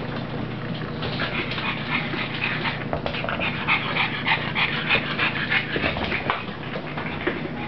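A pug panting in quick, short breaths while it plays with a toy, busiest in the middle of the stretch.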